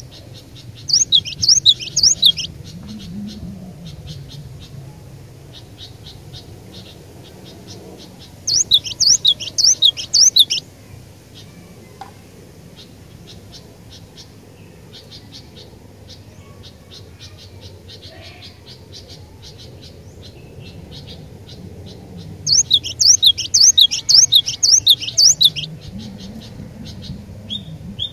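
Cinereous tit (glatik batu) singing: three bouts of quick, repeated high notes, each lasting two to three seconds, with fainter chips between them.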